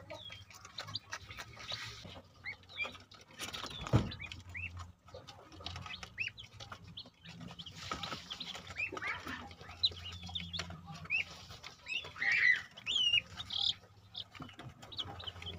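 Newly hatched chicks peeping, with short high peeps scattered throughout, over light tapping from pecking at feed on the plastic feeder and sack. A single louder knock comes about four seconds in, and a low steady hum runs underneath.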